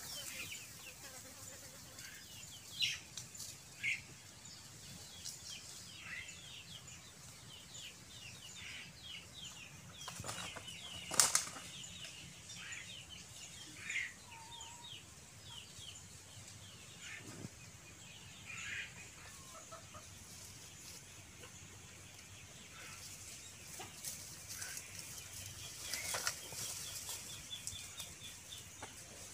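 Birds chirping outdoors in short repeated calls, a few of them louder, with one sharp knock about eleven seconds in.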